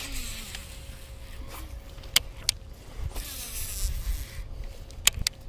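Baitcasting reel in a cast and retrieve: a brief whir that falls in pitch as the spool pays out line, then the reel being cranked, with several sharp clicks. Low wind rumble on the microphone.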